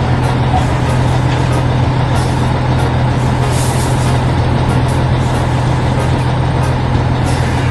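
Heavy diesel machinery engine running steadily under load, a constant low drone.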